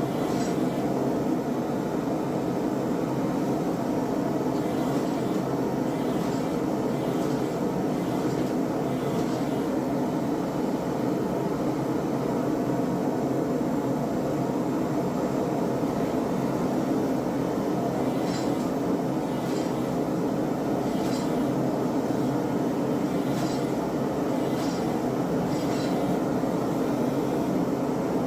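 A forge running with a steady, unbroken roar, with faint short ticks now and then, clustered a few seconds in and again in the second half.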